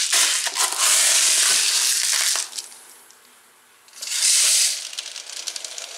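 A hand stirring through a plastic tub full of small cast lead shotgun pellets, a dense rushing rattle that stops about two and a half seconds in. A second short rush of pellets comes about four seconds in, followed by a few light clicks.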